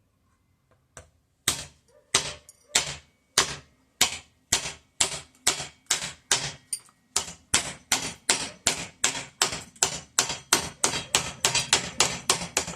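Hammer blows on a metal repair piece, bending it by hand over the edge of a wooden 2x4 block. The strikes start about a second and a half in, at roughly one and a half a second, and quicken to about three a second near the end.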